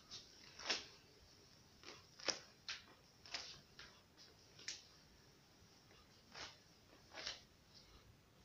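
Pink plush slippers with rubber-dotted soles stepping and scuffing on a tiled floor: about a dozen short, faint scuffs at uneven intervals.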